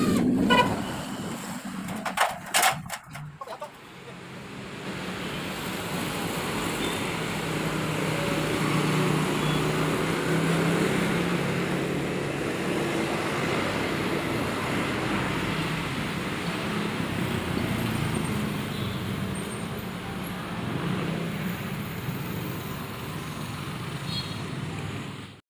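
Corded electric drill cutting off right at the start, a few sharp knocks about two seconds in, then a long, steady background of distant road traffic until it cuts off at the end.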